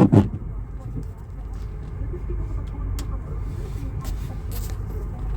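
Car noise: a steady low rumble with a few faint clicks, after a brief loud burst right at the start.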